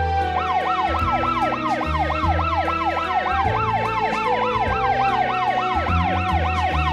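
Emergency-vehicle siren in fast yelp mode, about five rising-and-falling sweeps a second, starting just after the start and running on over background music.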